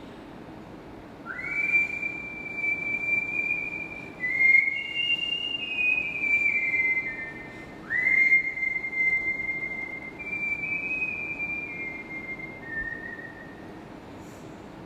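Whistled melody of high, clear held notes in two phrases. Each phrase opens with a quick upward swoop into a long note, then steps downward through a few shorter held notes.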